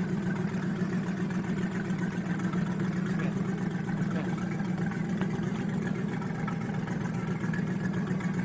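A vehicle engine idling steadily, a constant low drone with no change in pitch.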